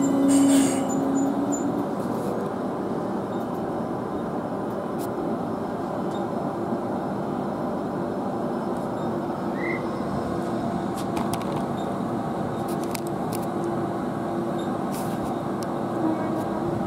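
Queensland Rail New Generation Rollingstock electric train at a platform: a short squeal from the wheels and brakes right at the start as it comes to a stop, then a steady hum from the standing train.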